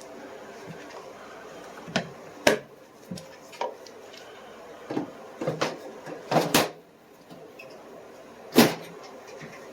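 Irregular sharp clicks and knocks as a folding pocket knife and small screwdriver bits are handled and set down.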